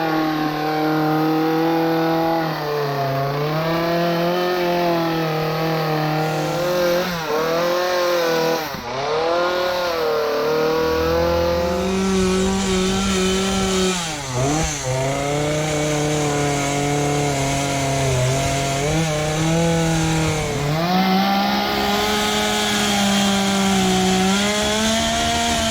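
Two-stroke chainsaw running at high revs, its pitch dipping and recovering about three times as it is worked into wood.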